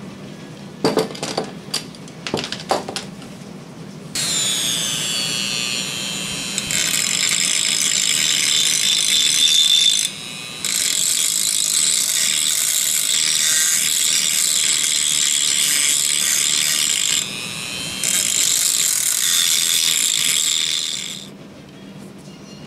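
A few light metallic clicks from handling the parts, then at about four seconds a handheld rotary tool starts and runs with a high, steady whine while grinding a cast side-frame part to ease the bolster fit. The whine dips briefly twice and stops about a second before the end.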